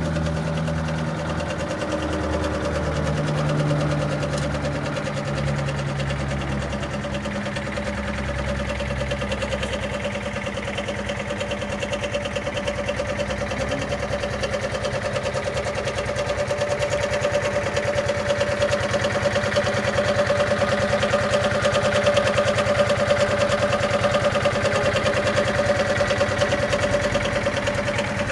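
Suzuki Gemma 125 scooter engine running. Its note is uneven for the first several seconds, then settles into a steady run that grows a little louder in the second half.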